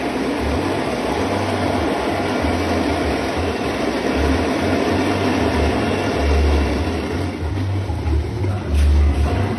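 Large double-roller soybean dehulling machine running steadily: an even, dense rushing noise over an uneven low hum.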